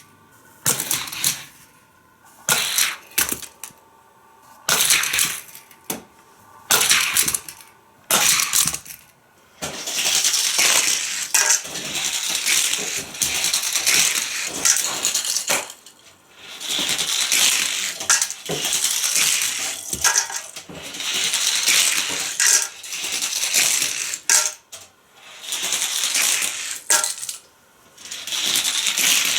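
Plastic Hot Wheels track pieces being handled and fitted together, with repeated clicks and clattering in irregular bursts, some lasting several seconds.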